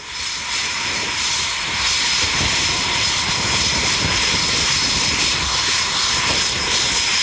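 Eurofighter Typhoon's twin turbofan engines running at taxi power: a steady jet whine over a continuous rush of noise.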